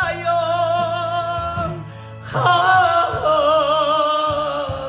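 A high voice singing a slow Korean ballad over a steady low accompaniment: one long note held with vibrato, a short break, then a second held phrase starting a little over two seconds in.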